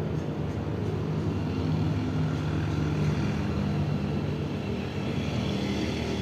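A steady low rumbling hum that holds at an even level.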